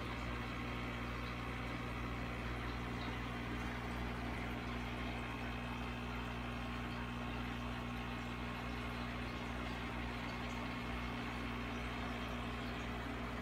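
Steady low hum of running aquarium equipment, with a light even watery hiss over it.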